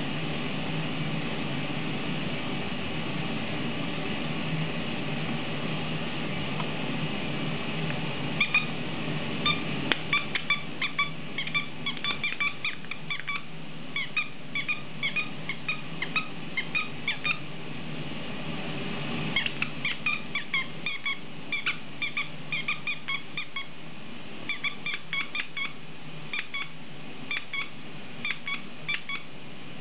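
A plush squeaky cow toy squeaking in quick runs of short squeaks as a dog chews on it, starting about eight seconds in, with a short pause around the middle. A steady low hum lies underneath.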